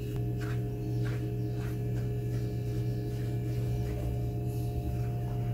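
A steady low electrical hum, with a few faint light scrapes of a silicone spatula stirring salt into dry flour in a plastic bowl.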